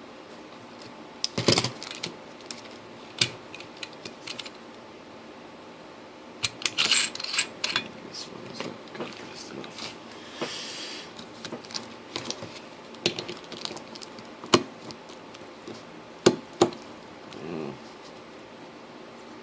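Metal liquid-cooling fittings being handled and worked against plastic: irregular clicks and clinks, a quick flurry of them partway through, and a brief scraping sound near the middle.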